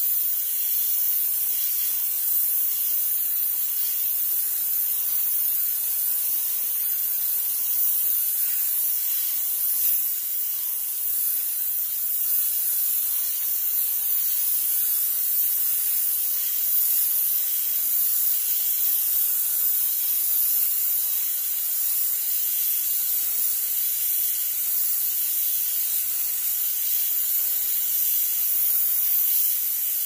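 Steam cleaner jetting steam, a steady high-pitched hiss.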